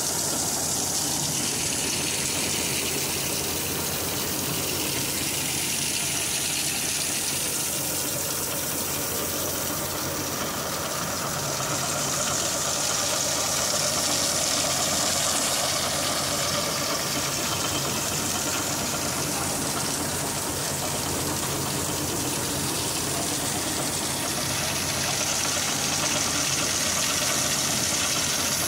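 Grain pouring in a heavy stream from a combine harvester's unloading auger spout into a trailer: a steady rush, like gushing water. The combine's engine runs steadily underneath.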